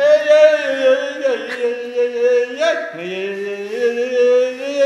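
A long, held voice-like tone with many overtones, steady in pitch. It breaks briefly about a second and a half in and again near three seconds, then carries on a little lower.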